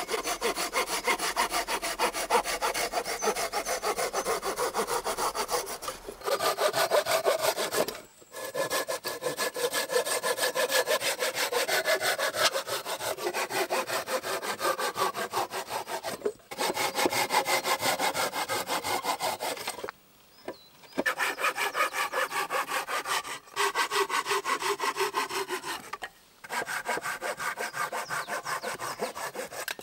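Hand saw cutting through wooden floor poles, fast back-and-forth strokes trimming the pole ends flush. The sawing comes in several runs broken by short pauses.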